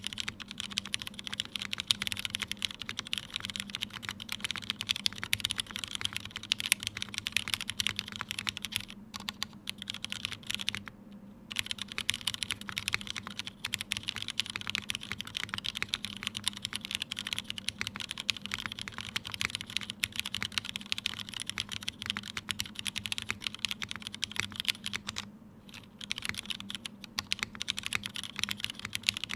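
Continuous typing on a Tomo mechanical keyboard with lubed Cherry MX Black linear switches (62 g springs, Krytox 205g0, switch films) in a top-mounted aluminium plate under GMK Serika keycaps: a dense run of keystroke clacks, with short pauses about nine, eleven and twenty-five seconds in.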